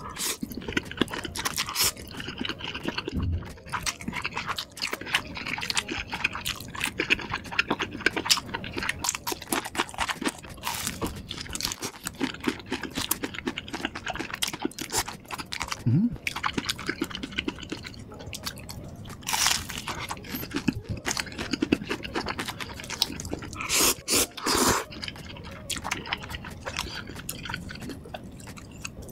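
A person eating close to the microphone: irregular wet chewing and crisp, crunchy bites of spicy noodles, sausages and fried battered snacks, with a few louder, longer mouth noises about two-thirds of the way through.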